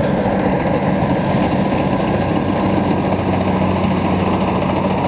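Kubota DC70 combine harvester running steadily while it cuts and threshes rice, its engine giving a constant low hum under the machinery noise.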